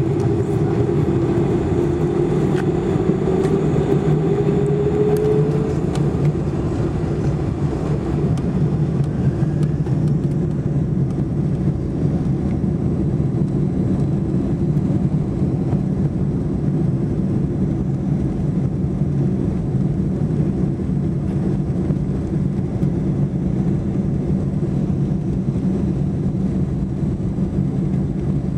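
Cabin noise of a Boeing 747-400 rolling on the ground with its four jet engines running: a high whine rising in pitch for the first few seconds, then a steady roar and rumble.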